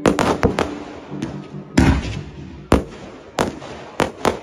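Fireworks display: a quick volley of sharp bangs at the start, then single loud bursts roughly once a second. The biggest bang, about two seconds in, has a low rumble trailing after it.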